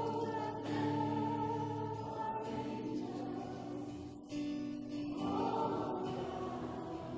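A worship song played and sung, with sustained, slowly changing notes.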